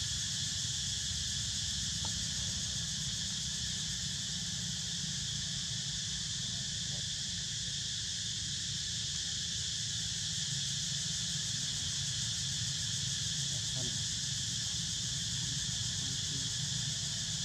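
Steady chorus of forest insects buzzing on an even high pitch, over a low steady rumble.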